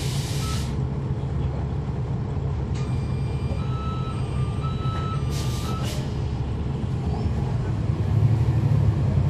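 Interior of a 2011 NABI 40-SFW transit bus, its Cummins ISL9 diesel running with a steady low hum. A hiss of air cuts off about half a second in, a series of beeps sounds through the middle, with another short air hiss about five and a half seconds in. Near the end the engine gets louder.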